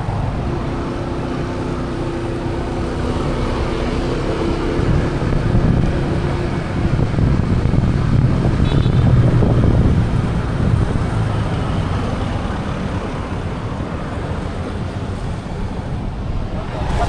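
Road traffic: motor vehicles running and passing, with a steady engine hum in the first few seconds and a louder low rumble swelling about eight to ten seconds in.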